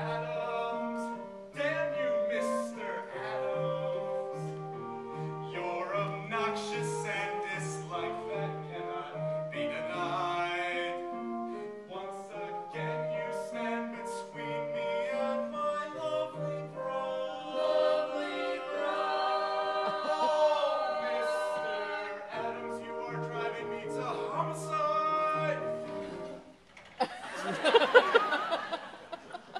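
Male voices singing a show tune together over an instrumental accompaniment with a steady low bass line. Near the end the music breaks off and a loud, noisy burst of about two seconds follows.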